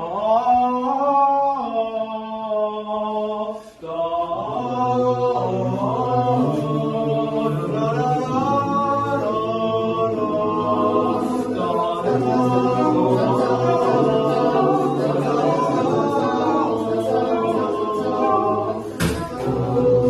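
Several voices singing a cappella in sustained harmony, with a lower voice part entering after a short break about four seconds in. A sharp click comes near the end.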